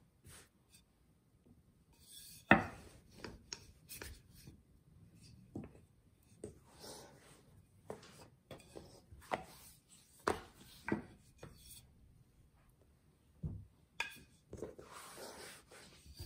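Wooden rolling pin rolling out thin lavash dough on a wooden cutting board: soft rubbing strokes broken by irregular knocks of the pin on the board, the loudest about two and a half seconds in.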